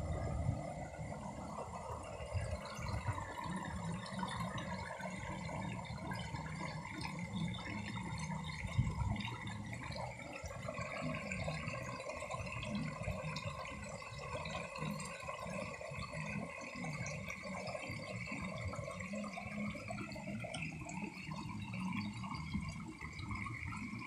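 Shallow rocky stream rushing and burbling over stones in a steady wash of water noise, with gusts of wind over the microphone.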